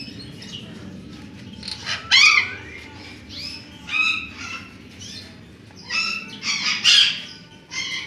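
Parrots squawking: about seven short, loud calls, the loudest about two seconds in and again near seven seconds.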